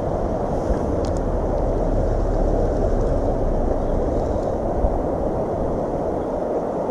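Steady rushing noise of wind buffeting the microphone over flowing river water, with a strong low rumble.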